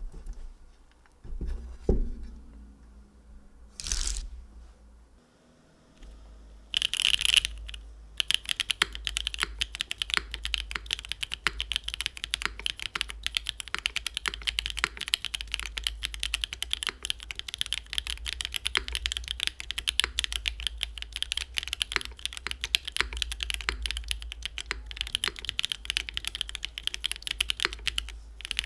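Fast, continuous typing on a TKD Cycle 7 custom mechanical keyboard with hand-lubed JWK SOTC v2 switches, an aluminium plate, GMK keycaps and no foam. A few separate knocks come first, then the keystrokes run densely from about eight seconds in.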